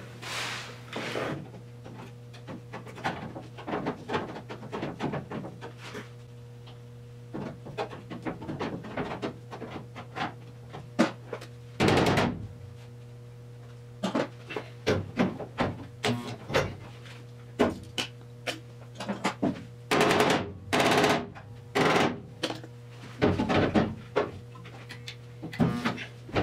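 Sheet-metal work on a Triumph TR6's driveshaft tunnel panel as it is bent into shape and spot-welded. Many short clicks and knocks on the steel are heard, with a few louder bursts of about half a second around the middle and again near the end, over a steady low hum.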